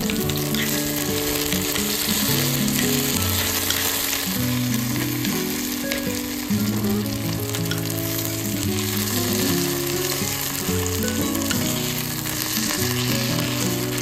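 Crab-and-egg fried rice sizzling steadily in a piping-hot stone bowl as a spoon stirs through it, over background music.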